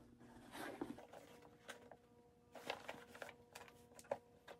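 Faint rustling and soft clicks of a coated-canvas Louis Vuitton handbag being handled as a hand feels around inside an interior pocket, with one sharper click about four seconds in. A faint steady hum runs underneath.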